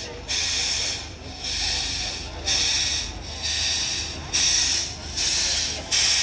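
Steam engine running slowly, its exhaust giving regular hissing chuffs about once a second over a low steady hum.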